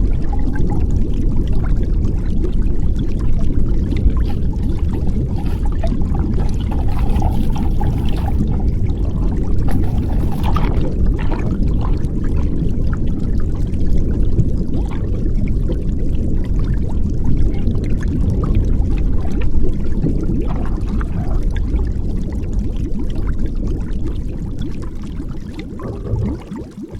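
Muffled water noise heard through a submerged waterproof DJI action camera: a dense low rumble with scattered small crackles and clicks, dropping away near the end.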